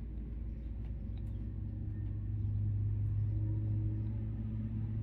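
A steady low hum or drone that swells a little about two seconds in.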